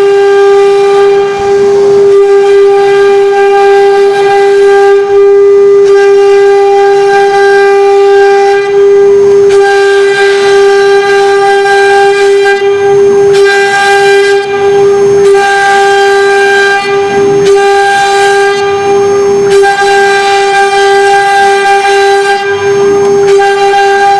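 AP-2030 CNC router's spindle whining at one steady pitch while its bit engraves wood. The cutting hiss swells and fades every few seconds as the bit moves through the wood.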